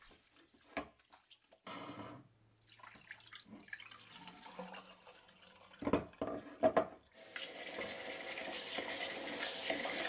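Short grain rice being washed by hand in a ceramic bowl: grains swished in the water, a few splashes about six seconds in as the cloudy rinse water is tipped off, then tap water running steadily into the bowl from about seven seconds in.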